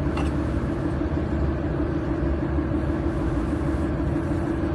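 Steady machine hum with a low rumble from the handheld laser welding machine running idle between welds. A light tap near the start as the stainless steel workpiece is handled.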